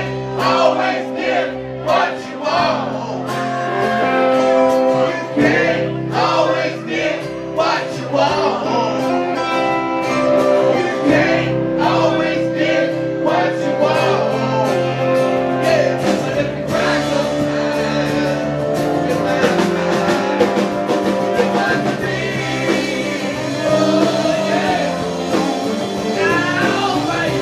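A live rock band playing: a man sings lead into a microphone over electric guitars and drums.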